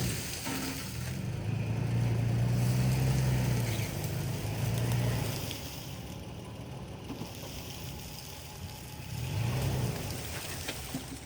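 A vehicle engine running under load, louder from about a second in to about five seconds, then easing off, with a brief swell again near the end.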